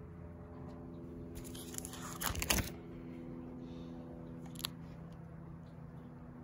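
Plastic photo-album page sleeves crinkling as a page is turned, lasting about a second around the middle, followed a couple of seconds later by a single light click.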